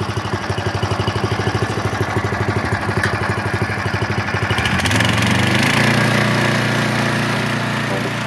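Pull-start petrol engine of a tracked motorised wheelbarrow (dumper) idling with a fast, even chugging beat. About five seconds in, it speeds up to a smoother, steadier run.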